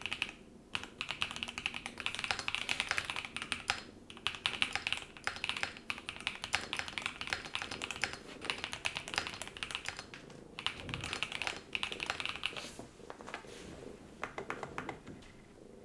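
Typing on a Cidoo V65 V2, a pre-built mechanical keyboard: a fast, steady patter of keystrokes that stops briefly twice, then thins to scattered, quieter presses near the end.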